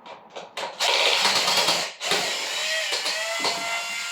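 Cordless drill running in two long bursts: the first harsh and noisy, the second a steady motor whine that dips briefly in pitch partway through.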